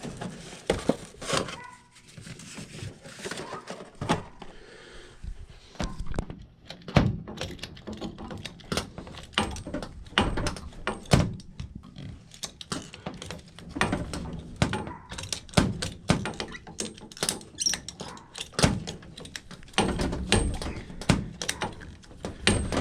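Irregular knocks, clicks and clatter of drain pipe fittings and hand tools being handled and fitted together while reworking a furnace's condensate drain line.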